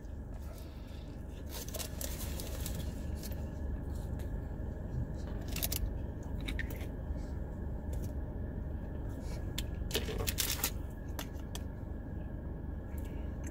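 Steady hum of a car's air conditioning blowing, with scattered small clicks and rustles of food and packaging being handled.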